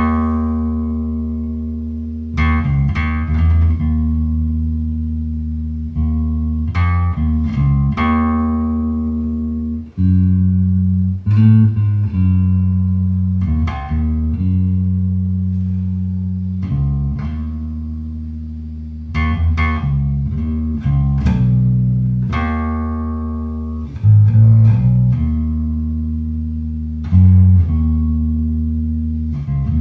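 Electric bass guitar with flatwound strings improvising a slow phrase in A Lydian. Low notes are plucked one to three seconds apart and left to ring out.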